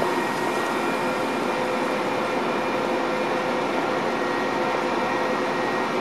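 Metra bilevel commuter coaches rolling slowly past at the platform: a steady rumble and hiss of wheels on rail and the cars' running equipment, with a few faint steady hums.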